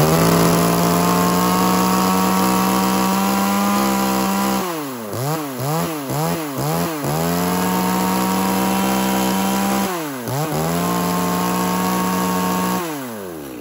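A 34cc Makita top-handle chainsaw's two-stroke engine is held at full throttle on a test run and runs smoothly. About five seconds in, the throttle is blipped up and down about five times in quick succession, then held wide open again. It dips once more around ten seconds in and drops back to idle near the end.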